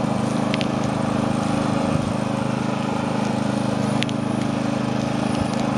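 Riding lawn mower engine running at a steady speed, an even drone that holds its pitch throughout.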